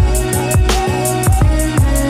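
Background music with a steady beat: deep bass drum hits, crisp high percussion and a sustained melody over them.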